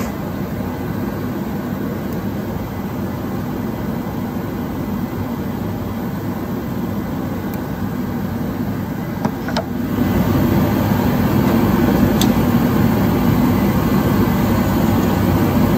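Steady hum of a mechanical fan or air-handling blower, growing louder about ten seconds in, with a couple of light clicks.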